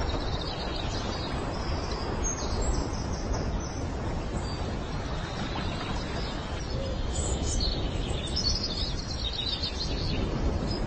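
Birds chirping in short high calls over a steady rushing background noise; the chirps come in clusters about two seconds in and again from about seven to nine and a half seconds.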